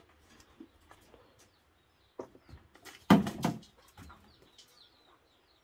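A chicken clucking, with one short louder burst of clucks a little past halfway, over faint small-bird chirps.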